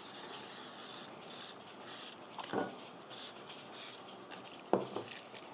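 A thin hand tool scraping and scrubbing inside a nickel-plated AR bolt carrier, metal rubbing on metal, with two sharp clicks about two and a half and nearly five seconds in.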